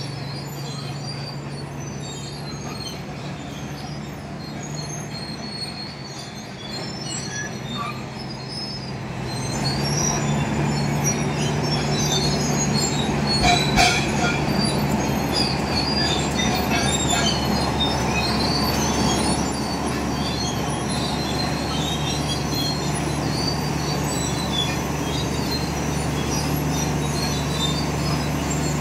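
BEML D155A bulldozer working, its Cummins KT1150 six-cylinder diesel engine running steadily under load, with the metallic squeal and clatter of its steel tracks. The engine grows louder about ten seconds in as the dozer comes on and pushes, and a couple of sharp clanks sound a few seconds later.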